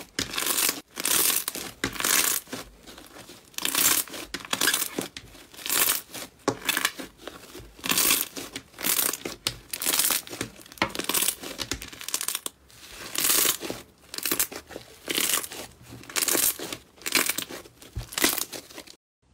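Green slime being kneaded, stretched and squeezed by hand, giving a run of crackling, squelchy bursts about one to two a second. It stops abruptly near the end.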